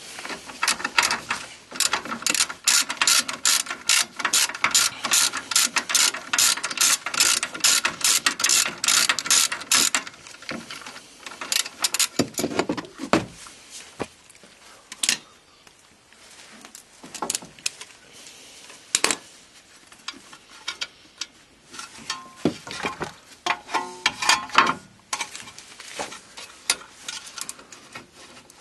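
A hand ratchet clicking quickly and evenly, about four clicks a second, as a rear brake caliper mount bolt is wound out; it stops about ten seconds in. Scattered metal knocks and clinks follow as the caliper bracket and brake disc are handled.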